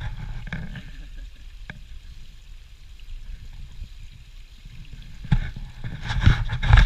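Wind buffeting the microphone in a steady low rumble, with louder rustling noise in the last second and a half.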